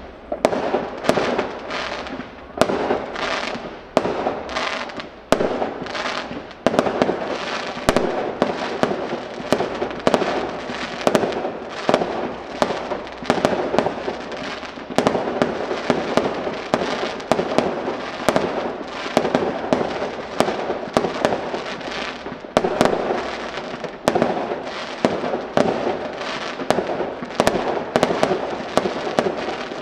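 Fireworks display: aerial shells bursting one after another, one to two sharp bangs a second with no let-up between them.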